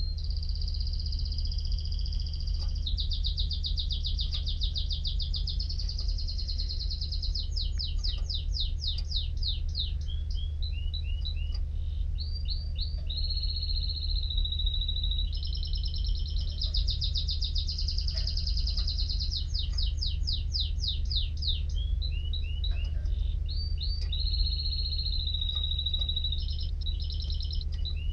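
Domestic canary singing a long unbroken song of fast trills, rolls and held whistled notes, switching to a new phrase every few seconds. A steady low hum runs underneath.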